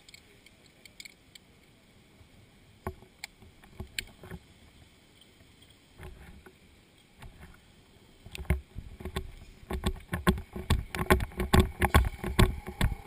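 Scattered clicks and knocks, then from about eight seconds in a dense, irregular run of loud thumps and rattles: a firefighter's helmet camera jolted by footsteps and by handling hose and gear.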